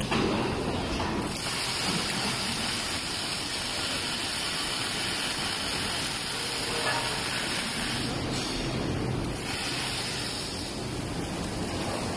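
Double-head arc welding machine welding shelf parts: a steady hissing arc that runs for several seconds, stops briefly and strikes again for about a second, over the machine's low hum.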